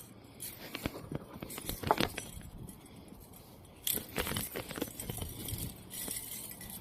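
Small clicks, taps and clinks of fishing tackle being handled while knotted lines are untangled, sparse at first, then a quicker run of clicks from about four seconds in.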